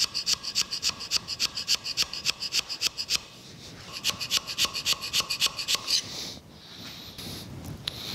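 Hand scraper cutting a crosshatch pattern into the cast-iron dovetail of a metal planer cross slide: quick rasping strokes, about five a second, with a short pause about three seconds in. The strokes stop about six seconds in, leaving a softer hiss.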